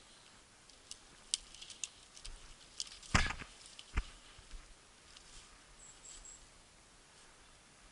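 Dry twigs and bare branches snapping and scraping as a person pushes through dense leafless scrub: a run of small cracks about a second in, a louder crunching rustle around three seconds, and a sharp snap just after, then faint brushing.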